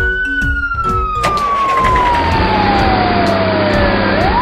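Cartoon fire-truck wail siren: one tone holds high, then falls slowly for about three seconds and sweeps back up near the end. About a second in, a rushing vehicle noise comes in under it as the truck moves off.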